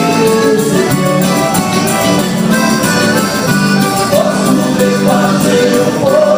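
A band playing with singing; accordion and percussion can be picked out.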